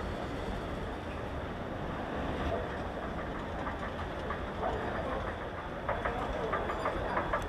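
Airport moving walkway and escalator running, a steady mechanical rumble. From about six seconds in come regular clicks, about five a second, as the steps pass.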